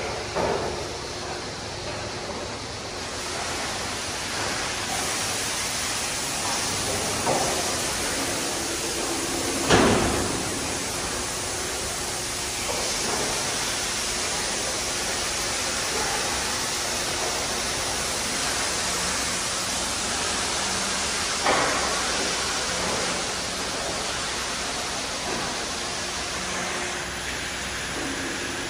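High-pressure water jets of a Mark VII AquaJet touchless car wash arch spraying a car: a steady hiss of spray, broken by a few short sharp sounds, the loudest about ten seconds in.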